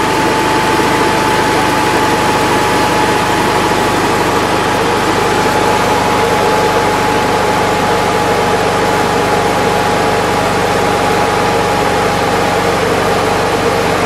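Air-cooled 25 hp flat-four engine of a 1949 Volkswagen Beetle (Hebmüller cabriolet) idling steadily. A steady high whine runs over the engine note, the distinctive whine credited to the cooling fan rather than the engine.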